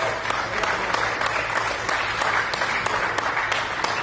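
Crowd applauding, a steady patter of many hands clapping.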